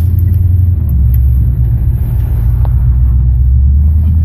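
Steady low rumble from a 1976 Chevy C10's rear end and drivetrain while the truck is driving. It is the rough rear-end noise and vibration that the owner suspects comes from a loose drive shaft.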